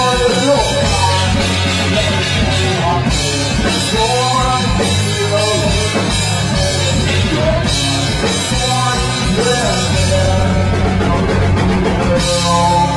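Rock band playing live: a singer's voice over electric guitar, bass guitar and a drum kit, with cymbals crashing in long stretches.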